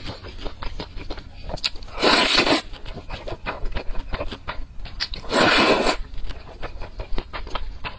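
Two loud slurps of noodles being sucked in, the first about two seconds in and a longer one about five seconds in, with small wet chewing and mouth clicks between them.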